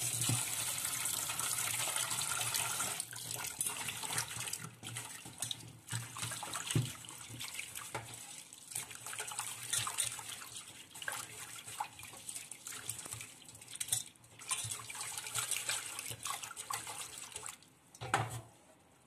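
Rice and chana dal being washed by hand in a steel bowl of water: water swishing and splashing, steady for the first few seconds, then in short irregular bursts.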